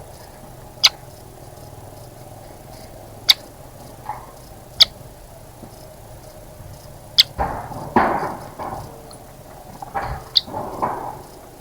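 Short, sharp bird chip notes at irregular intervals of a second or two, with two bouts of splashing water and wing flutter as a bird bathes in a shallow bird bath, the first about seven seconds in and the second near the end.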